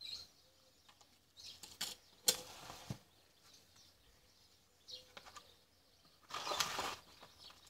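Plastic scoop scraping and rattling through coarse, gritty drainage substrate in a plastic pot, with a few sharp clicks of plastic being handled; the longest scrape comes near the end.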